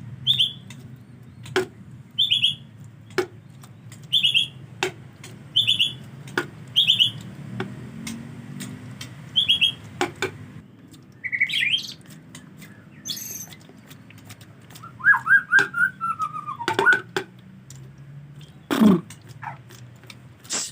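White-rumped shama (murai batu) repeating a short, high call about every second and a half, with sharp clicks in between, then a few rising notes and a brief, lower whistled phrase in the second half.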